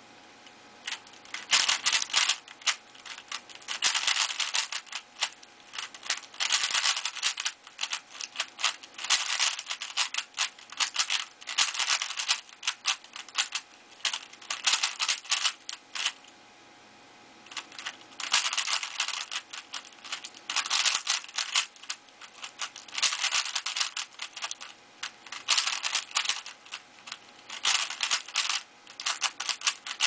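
3x3 Rubik's cube being turned quickly by hand: rapid runs of plastic clicking and rattling, each a second or two long, with short pauses between them and a longer pause about halfway through.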